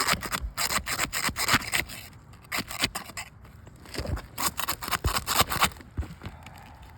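A 5-in-1 tool scraping and prying under asphalt shingles to break the sealant strips, which are holding strong. It comes as two bursts of quick scraping strokes, one in the first two seconds and another about four seconds in.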